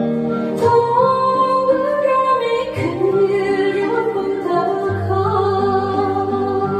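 A woman singing a Korean trot song into a microphone over instrumental accompaniment, with long held notes.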